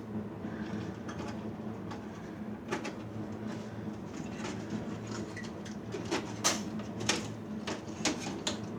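Scattered clicks and knocks of a metal server chassis and its circuit board being handled and pulled apart, closer together from about six seconds in, over a steady low hum.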